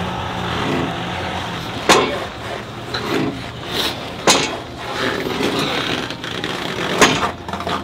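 Steel car-deadlift frame loaded with a small Kia Picanto clanking as the strongman lifts it on the side handles, three sharp knocks a couple of seconds apart, over a steady low hum.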